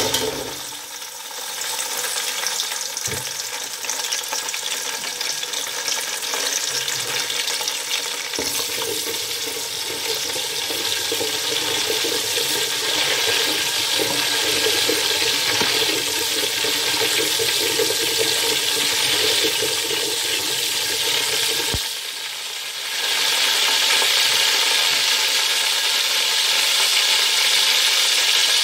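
Curry leaves and whole spices (cumin, fennel, cardamom, fenugreek, cloves) sizzling steadily in hot oil in a pot: the first frying of a curry's tempering spices. A few sharp knocks sound through it, and the sizzle dips briefly about three-quarters of the way through before coming back louder.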